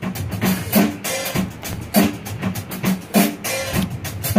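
Live rock jam on a drum kit and electric guitar. The drums keep a steady beat with a strong cymbal-and-drum accent about every second and a quarter, under short guitar notes.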